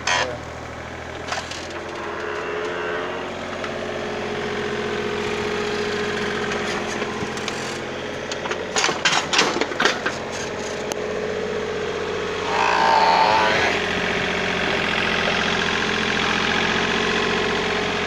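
Compact excavator's engine running steadily while it digs. A rapid clatter of knocks about halfway through as the bucket works the soil, and a louder, higher whine for about a second later on.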